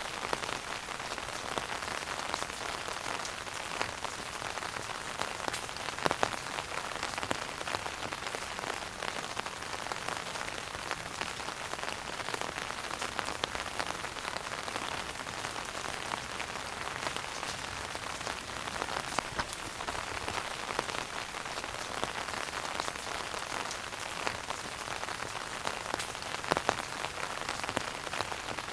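Wood fire burning in a fireplace: a steady dense crackle with frequent sharp pops, a couple of them louder.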